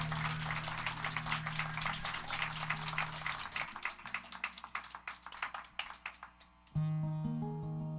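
Live band music with acoustic guitar and percussion: the busy, percussive texture thins out and nearly stops a few seconds in, then a new tune starts near the end with plucked guitar notes over a held bass note.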